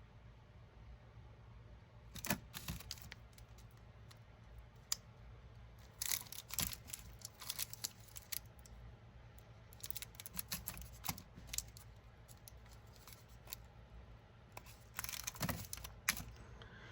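Firecracker packs being handled: intermittent rustling, crinkling and light clicks of their paper wrappers, in several short bouts over a faint low hum.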